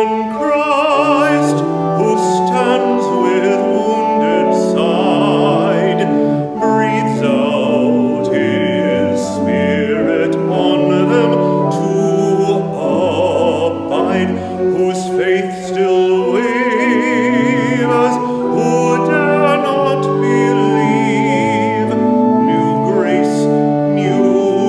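Church music: a singer in a classical style, with strong vibrato on held notes, over steady instrumental accompaniment.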